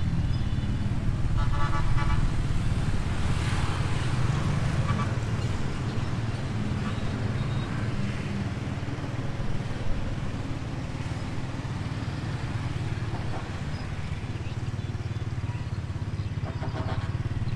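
Steady low rumble of outdoor street ambience, with faint distant voices now and then.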